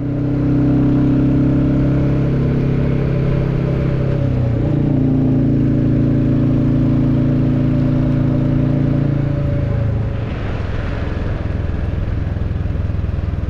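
Royal Enfield motorcycle engine running at a steady cruise on the road. Its pitch dips and then settles a little higher about four seconds in. After about ten seconds the engine note fades under a broader rushing noise.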